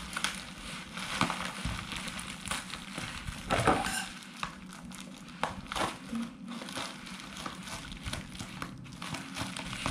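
Plastic bubble-wrap packaging crinkling and crackling as it is pulled and peeled open by hand, in irregular bursts, loudest about three and a half seconds in.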